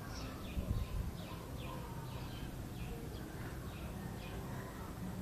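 A small bird chirping over and over, short downward-sliding chirps about two a second, over a steady low rumble.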